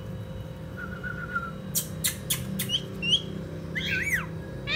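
Rose-ringed parakeet calling: a faint wavering whistle, then a run of sharp, short chirps, and a louder rising-and-falling squawk about four seconds in.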